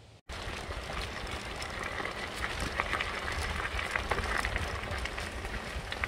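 Fat-tire recumbent trike rolling along a sandy, gravelly trail: tyres crunching with many small crackles over a low rumble, starting abruptly about a quarter second in.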